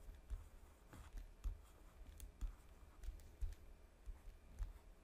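Faint, irregular taps and clicks of a stylus writing on a tablet, with soft low knocks about once or twice a second.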